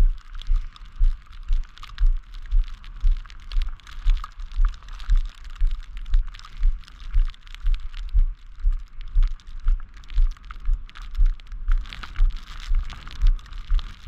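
Footsteps walking over a snow-covered sidewalk: a low thump about twice a second at a steady walking pace, with a fine crackle of snow over it.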